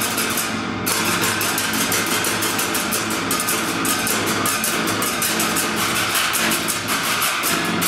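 Percussion ensemble striking the tops of a row of steel barrels in a fast, steady rhythm, a dense stream of hits with a short break about a second in.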